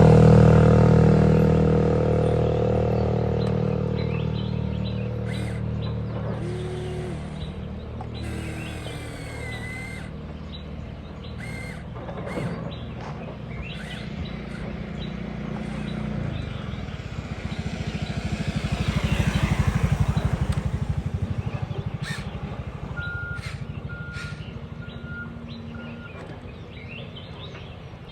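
Engine running, with fine rapid pulses, swelling to a peak about twenty seconds in and then fading away. Birds chirp now and then. Music fades out over the first few seconds.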